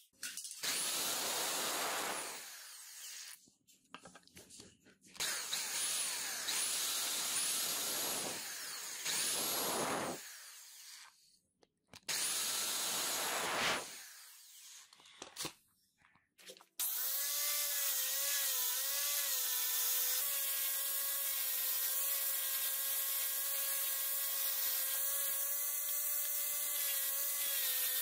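An electric drill bores holes through a wooden knife-handle scale in several bursts of a few seconds each, with short gaps between them. From about 17 seconds in, a handheld power tool runs steadily on the wood at one even pitch.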